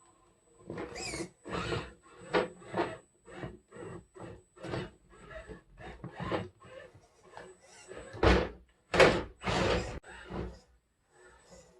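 RC rock crawler truck driven in short throttle blips, its electric motor and gears whirring in many brief, irregular bursts as it climbs the course.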